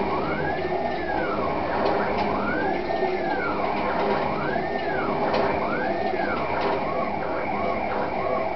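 CNC plasma cutting table running: the plasma torch arc hisses steadily while the stepper motors whine up and down in pitch with each move of the gantry. There are five long rising-and-falling whines, then several shorter, quicker ones near the end.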